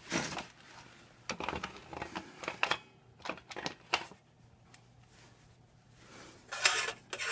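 Scattered light clicks and clinks of hand tools and metal exhaust hardware being handled, in short clusters, with a quieter stretch after about four seconds and a denser patch of rattling near the end.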